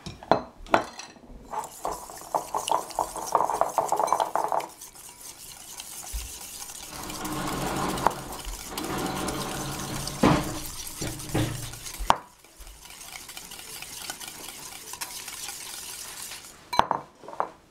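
Hand-stirring mayonnaise in a bowl, with oil being worked into egg yolk and mustard: a utensil clinking and scraping against the bowl in quick strokes. There are a few louder knocks about ten and eleven seconds in, and the stirring goes softer after about twelve seconds.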